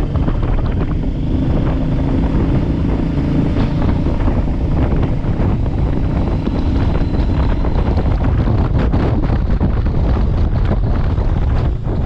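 Wind buffeting the microphone of a moving motorcycle, with the engine running steadily underneath.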